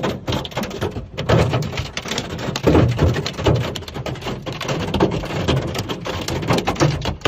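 Flash floodwater rushing and churning: a loud, rough, unbroken noise with irregular knocks throughout.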